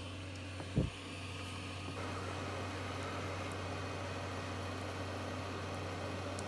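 Hot air rework station blowing a steady hiss of air over a low hum, the airflow growing louder about two seconds in as it heats a small surface-mount resistor to desolder it from a circuit board. A single low thump comes just under a second in.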